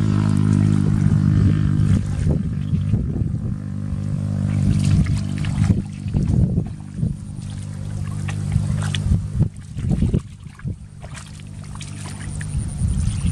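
A small engine running steadily somewhere nearby, a low even drone that drops away near the end. Over it come splashes and squelches as hands and feet move through shallow muddy water.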